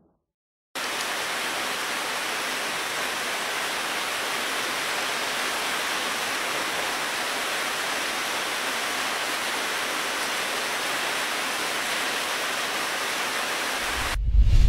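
Steady hiss of heavy rain, cutting in abruptly just under a second in and cutting off sharply near the end, where a loud low rumble begins.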